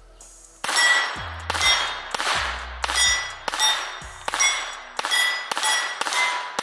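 A string of about ten pistol shots, roughly two a second, each followed by the ring of a steel plate target being hit.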